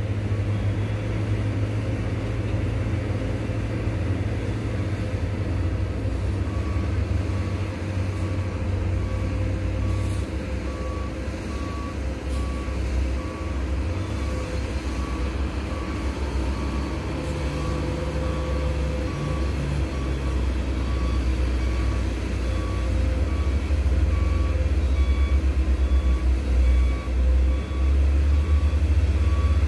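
Diesel engine of a coal-laden Hino dump truck pulling up a steep pit ramp, a low rumble that grows louder near the end as the truck draws close. A reversing alarm beeps steadily, about once a second, from about six seconds in.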